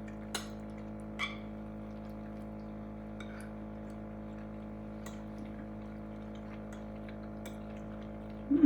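Light clinks of cutlery against a plate during eating, twice early on and faintly later, over a steady low electrical hum. A short low sound comes near the end.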